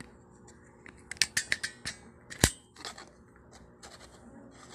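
A quick run of sharp clicks about a second in, then one much louder click about two and a half seconds in, followed by a few fainter clicks.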